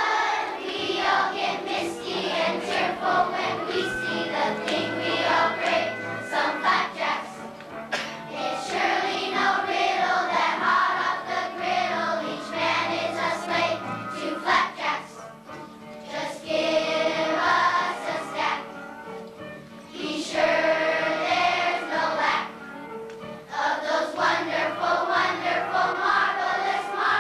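A children's choir singing a song over instrumental accompaniment, with steady low notes moving from pitch to pitch beneath the voices.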